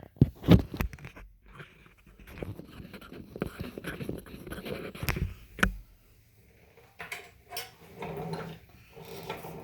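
Hand tools working on the motorcycle's front axle hardware: a few sharp metal knocks near the start and again about five seconds in, with lighter scraping and handling sounds in between.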